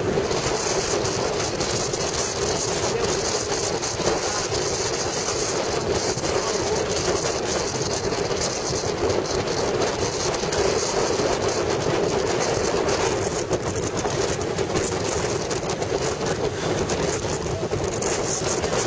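Steady ride noise from a moving motorcycle: wind rushing over the microphone on top of the engine's drone and road noise.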